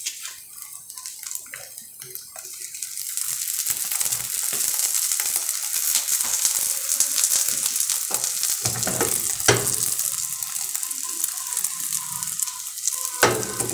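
Eggs frying in oil in a small metal frying pan, a crackling sizzle that grows louder about three seconds in. Two sharp knocks, one about nine seconds in and one near the end.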